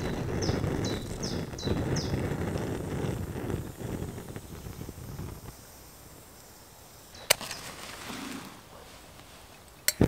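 A low rumbling noise that fades out about five seconds in, with a bird's five short, quick, falling chirps in the first two seconds. Two sharp clicks come later, the second near the end.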